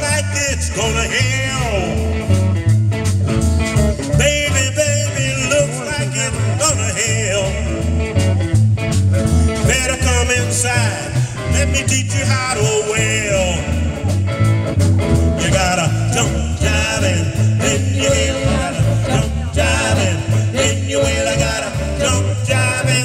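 Live band playing a song through PA speakers: electric guitars over a steady bass line.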